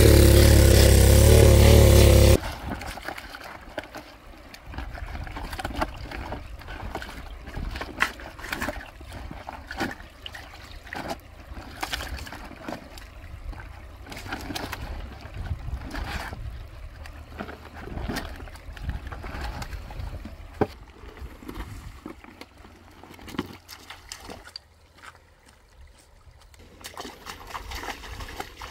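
A water pump's engine running loudly, stopping abruptly about two seconds in. After that come uneven splashes, drips and knocks of hands and fish in shallow water and a plastic basin as fish are caught by hand from the drained pool.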